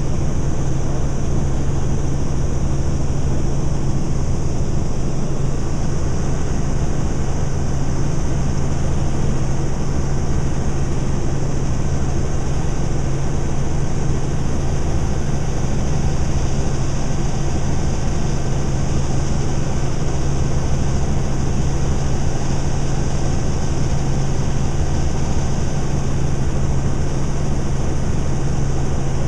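Helicopter heard from inside the cabin in steady cruise: rotor and engine make a loud, unchanging drone with a strong low hum.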